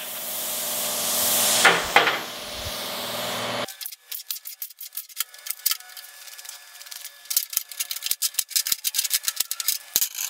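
Plasma cutter hissing, which stops abruptly about three and a half seconds in. Then comes a run of light metallic clicks and clinks as small steel pieces are handled on a steel table.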